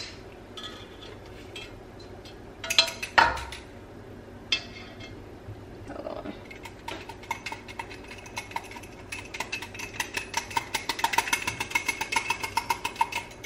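Wire whisk clinking rapidly against the side of a pan while whisking a heavy-cream sauce, about five or six ringing taps a second, starting about halfway through. A single louder knock about three seconds in.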